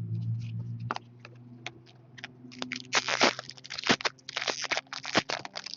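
Trading cards and pack wrappers being handled: irregular rustling, sliding and scraping with quick clicks, busiest in the second half.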